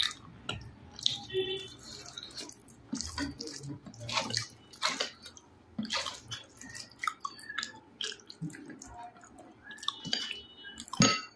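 Close-miked eating sounds of a person eating rice with spicy chicken kosha: wet chewing and smacking with irregular mouth clicks, and one louder click near the end.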